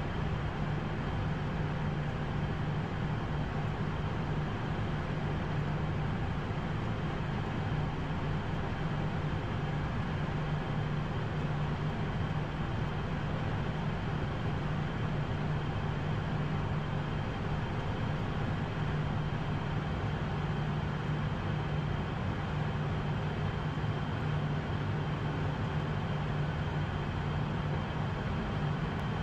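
Steady flight-deck noise of an Airbus A220-100 in the climb: a constant drone of airflow and engines with a low steady hum, unchanging throughout.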